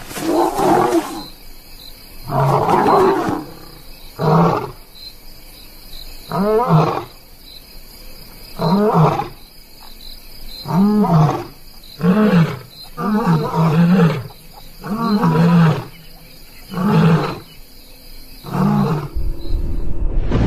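Lion roaring: a series of about a dozen grunting calls, one every second or two, each rising then falling in pitch.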